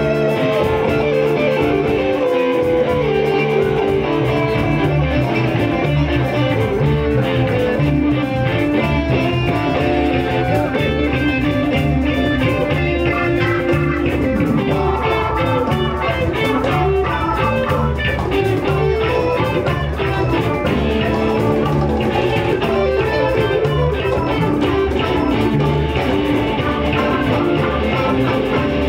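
Live band jamming: electric guitar lines over bass guitar and a steady beat.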